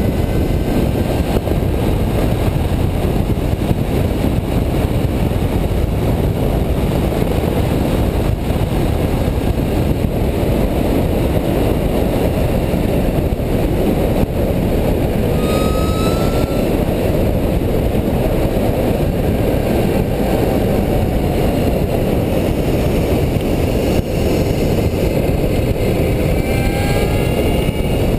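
Wind rushing over the microphone of a handlebar-mounted camera on an electric bicycle at racing speed: a steady, heavy low rumble. A few faint rising whines come through, once around the middle and again near the end.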